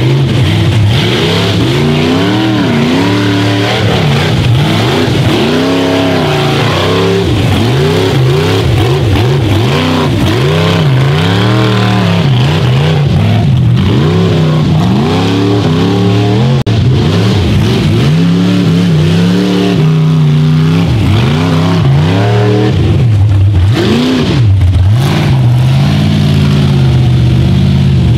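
Rock bouncer buggy's engine revving hard under load while it climbs a steep dirt hill, the revs swinging up and down over and over, about once a second, as the driver works the throttle.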